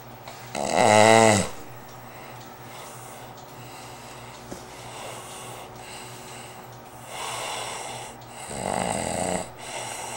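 A sleeping man snoring. A loud pitched snore comes about a second in, then a softer breath around seven seconds in, and a second, rougher snore near the end.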